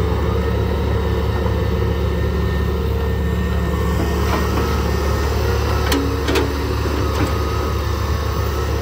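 Excavator's diesel engine running steadily, with a couple of sharp metallic knocks about six seconds in.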